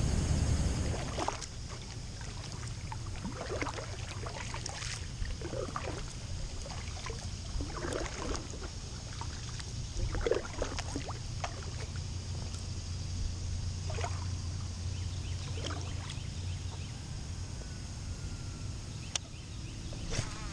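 Kayak paddle strokes from an inflatable kayak: the paddle blades dip and splash in pond water at irregular intervals, with drips between strokes, over a steady low rumble.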